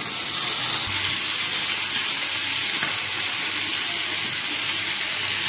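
Hilsa fish steaks sizzling steadily in hot mustard oil in a frying pan as they are laid in.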